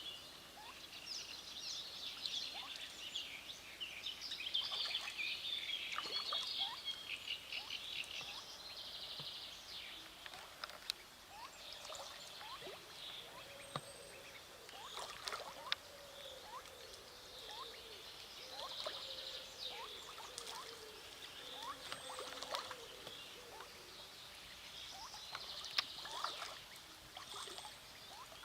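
Chorus of high chirping bird calls at a lake, densest over the first eight seconds or so, then scattered short rising chirps and faint clicks.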